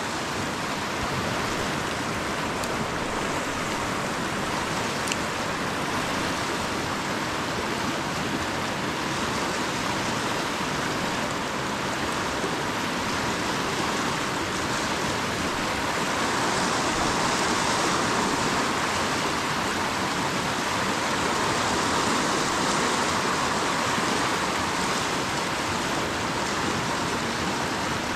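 The fast-flowing upper Jordan River rushing steadily, a little louder for a while about two-thirds through.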